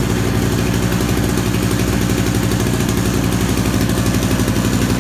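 Small two-stroke 1 kW portable petrol generator running steadily at constant speed, with a fast, even engine pulse.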